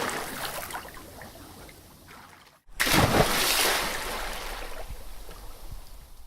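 A person jumping into a swimming pool. The water of one splash sloshes and trickles as it settles, then after a short gap a new splash hits about three seconds in and fades into sloshing and dripping.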